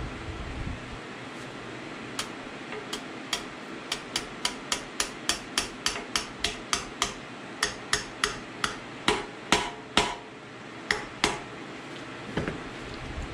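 Small hammer tapping a carrier-bearing shim down into a Ford 8.8 differential housing with a rapid run of sharp metallic taps, roughly three a second, harder and more spaced toward the end. The shim is being driven in tight to set carrier bearing preload.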